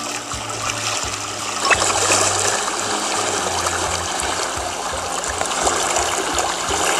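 Steady running, trickling water like a stream, the soundtrack of a goldfish video for cats playing on a tablet.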